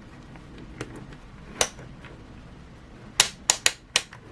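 Sharp clicks and taps from handling a digital multimeter: two single clicks, then a quick run of about five clicks near the end.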